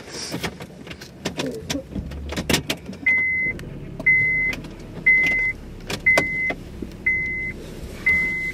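Scattered clicks and knocks of someone moving about in a car's driver's seat, then a car's warning chime beeping six times at one steady pitch, about once a second.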